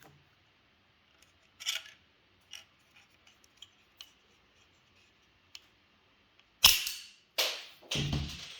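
Plastic clicks from a 3D-printed PLA mini crossbow being handled, then three loud sharp snaps in quick succession near the end, each fading out.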